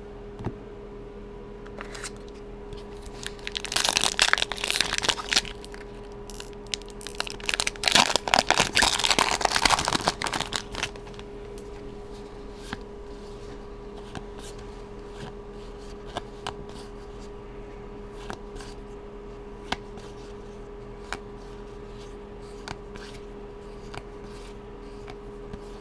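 A Magic: The Gathering booster pack's foil wrapper being torn open and crinkled, in two bursts about four and eight seconds in, followed by scattered soft clicks of the cards being handled. A steady low hum runs underneath.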